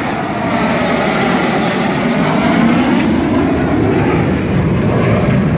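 Dassault Rafale fighter's twin turbofan engines passing low overhead on the landing approach: loud, steady jet noise whose pitch slides downward as it goes by.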